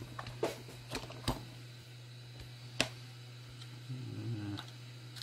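Scattered light clicks and plastic clatter from a plastic compartment organiser box as it is opened and pieces of heat-shrink tubing are sorted through, with one sharper click a little before the middle. A steady low hum runs underneath.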